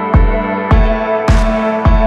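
Electronic background music with a steady beat: a low kick drum about twice a second and a brighter hit on every other beat, over held chords.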